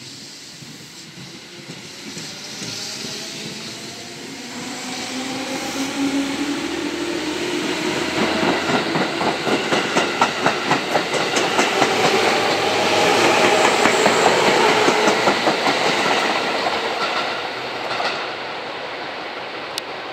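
Seibu 4000-series electric train pulling out and accelerating past. Its traction motors whine, climbing in pitch, and the wheels click rhythmically over the rail joints, loudest as the cars go by, then fading as the train draws away.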